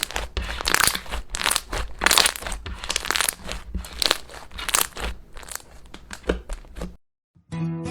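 Slime being squeezed and worked by hand: an irregular run of short, sharp squishing and crackling noises. It stops abruptly about seven seconds in, and after a brief gap acoustic guitar music starts.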